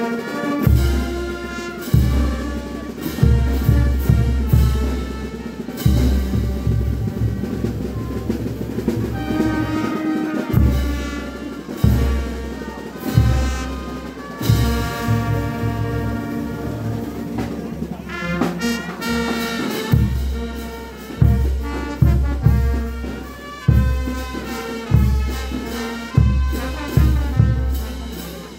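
Brass band music: horns play a melody over a bass drum beat.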